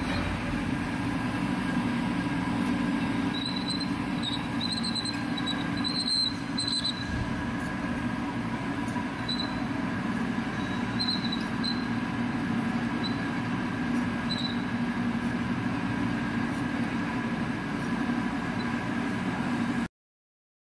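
Metal lathe running while a 30 mm carbide drill bit bores into a hard metal workpiece: a steady machine drone with short, high squeaks now and then through the middle seconds. The sound cuts off suddenly near the end.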